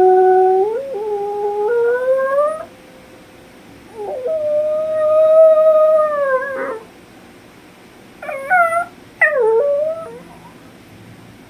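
A puppy howling: a long howl that rises in steps over about two and a half seconds, then a second held howl that drops at its end, then two short, sharply bending cries near the end. It is separation howling: the puppy is missing his mom.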